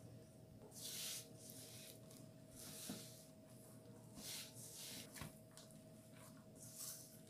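Hands kneading a crumbly flour dough in a stainless steel bowl: faint, soft squishing and scraping strokes, about five in seven seconds, as water is worked in a little at a time to bring the dough together.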